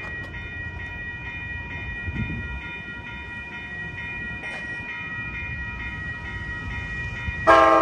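Approaching Amtrak Capitol Corridor train, cab car leading, heard as a low rumble under a steady, evenly repeating high ringing. Near the end the train's horn cuts in loudly, a chord of several notes held on.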